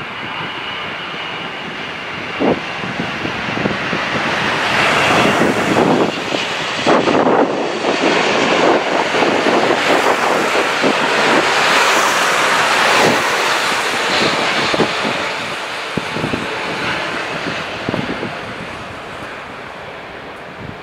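Boeing 777 airliner passing close on final approach. Its jet engine noise swells over several seconds, stays loud for a while, then fades as the aircraft flares and lands. A few short knocks of wind hit the microphone.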